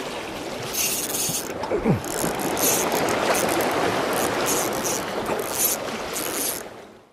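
Small spinning reel clicking and whirring in repeated short bursts as line is worked with a fish on the bent ultralight rod. Waves wash steadily against the breakwater rocks underneath.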